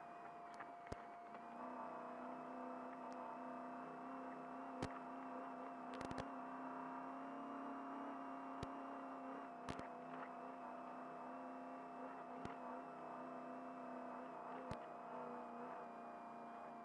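Trophy Truck engine running at steady part-throttle cruising revs, its note lifting slightly mid-way and easing off, with a steady whine underneath. Sharp knocks come at irregular moments as the truck crosses rough desert ground.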